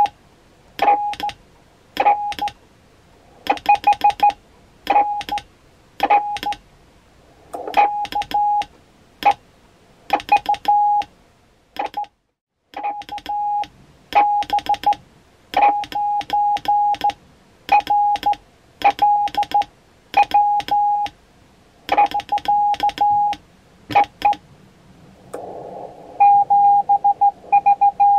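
Morse code (CW) sent on a straight key and heard as a roughly 800 Hz tone from a Tecsun PL-330 receiver acting as sidetone, keyed on and off in dits and dahs. Many key-downs open with a sharp scratchy click, the receiver's AGC overloading on the strong transmit signal. Near the end the tone runs on over a steady hiss of band noise.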